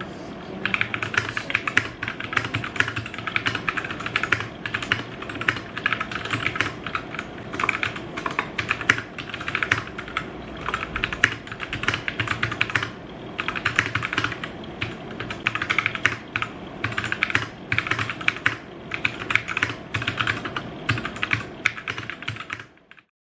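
Typing on a Royal Kludge RK61 hot-swappable 60% mechanical keyboard fitted with brown tactile switches. It is a fast, uneven run of keystroke clicks with a short pause about halfway through, and it cuts off suddenly near the end.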